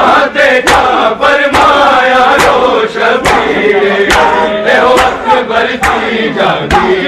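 A crowd of men chanting a noha together, with loud sharp slaps of chest-beating (matam) in time, about one beat a second.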